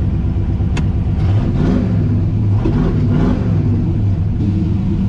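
Turbocharged 5.3-litre V8 engine running, its pitch rising and falling a few times in the middle, with no rod knock after its bearing repair. A single sharp click sounds about a second in.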